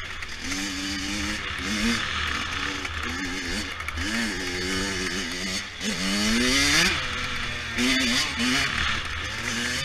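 100cc dirt bike engine revving up and down while being ridden, its pitch rising and falling with the throttle, with one long steep climb about six seconds in.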